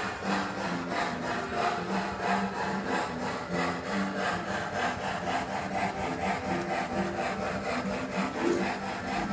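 Lionel LionChief Chessie System Mikado model steam locomotive and its cars running on the layout's track: a steady, rhythmic rasping chuff with the wheels rolling on the rails.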